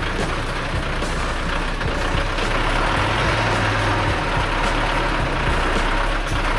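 Heavy truck's diesel engine running steadily.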